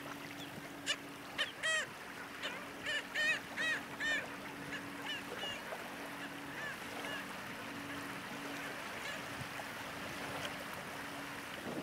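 About ten short, nasal, honk-like bird calls in quick succession during the first half, over a steady low hum and faint wind noise.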